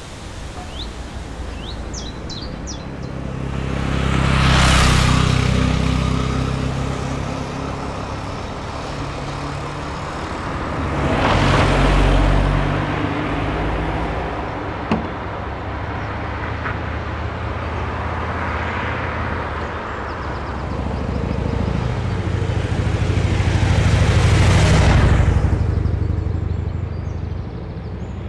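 Cars passing one at a time on a road, each pass swelling and fading with tyre noise, the loudest about 5, 12 and 25 seconds in, over a low steady traffic rumble. A few short bird chirps sound in the first seconds, and there is a single sharp click about 15 seconds in.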